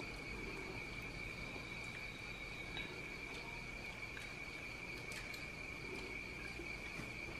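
A faint, steady, high-pitched insect trill, with a few soft clicks of chopsticks against rice bowls.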